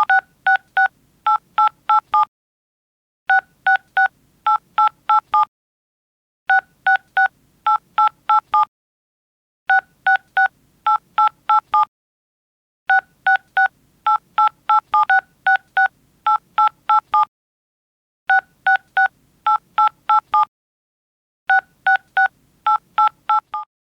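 Touch-tone telephone keypad dialing: quick strings of about ten short two-tone beeps, each string lasting about two seconds, repeated over and over with a pause of about a second between them, like a phone number being keyed in again and again.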